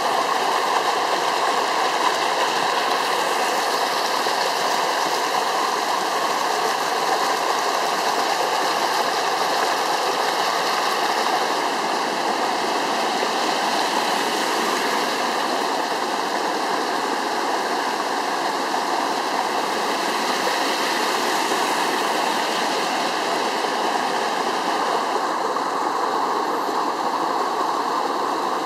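Rushing of a rain-swollen, flooding forest stream: fast muddy water pouring over its bed and down a small cascade in a steady, even rush. A little less hiss near the end.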